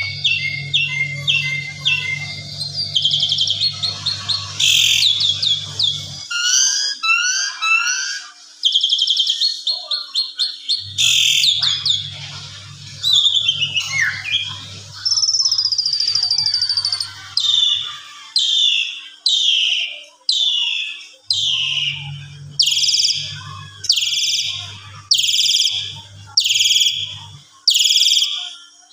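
Asian pied starling (jalak suren) singing a long, varied song of whistles, rapid trills and chattering phrases. It ends in a string of loud, downward-swept whistled notes, about one a second.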